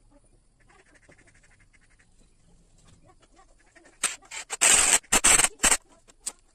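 Metal cylinder head cover being set onto a Hero Duet scooter engine's cylinder head and worked into place: a few faint clicks, then loud scraping and knocking of metal on metal for about two seconds, starting about four seconds in.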